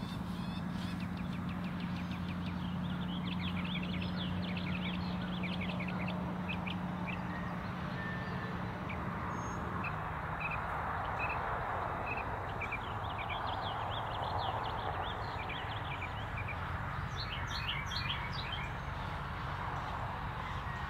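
Songbirds chirping in the early-morning chorus: many short, high repeated chirps. Underneath runs a steady low hum that drops a little about ten seconds in, with a soft background rush that swells and fades in the middle.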